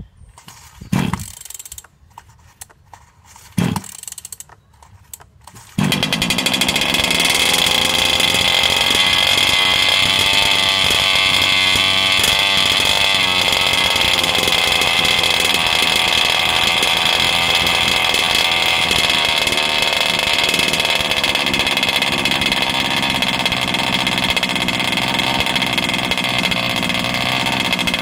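Several pulls on the recoil pull starter of an RC buggy's ESP 34 two-stroke petrol engine, which catches about six seconds in on its first start and then keeps running steadily at idle. It runs very rich and a little rough, with the oil from assembly still in it.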